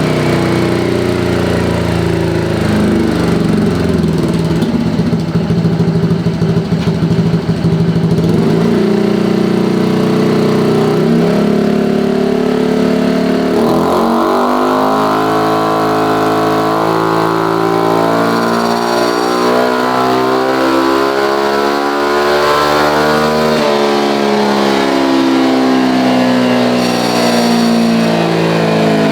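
Automatic scooter engine running on a dyno roller through a 3Tech EvoX STD aftermarket exhaust with its dB killer fitted. The engine is revved and held at steady speeds; its pitch steps up about halfway through and shifts again later on.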